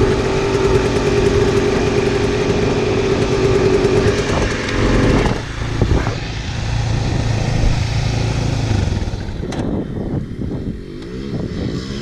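Dirt bike engines running: a steady engine note holds, then breaks off about five seconds in. A lower engine sound follows as a trail bike pulls away and fades down the trail. A new rising engine note comes in at the very end.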